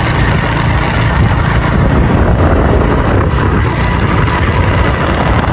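Loud wind buffeting the microphone on a moving motorbike, with the motorbike's engine and road noise beneath it.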